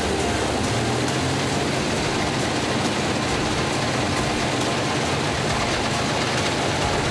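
Antique self-propelled combine harvester working through an oat crop: the engine runs steadily under a dense, continuous clatter from the machine's moving parts.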